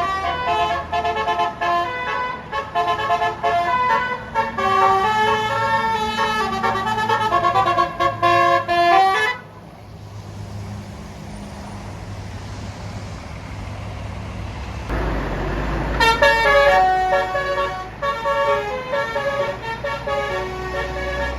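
Bus 'telolet' Basuri multi-trumpet air horn playing a tune in changing notes for about nine seconds. It stops, a bus engine rumbles low, and the horn tune starts again about 16 seconds in over the engine.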